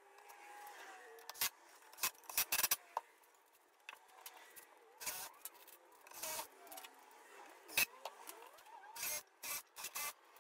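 Cordless Bosch 18-volt driver run in a series of short bursts, driving screws into plywood.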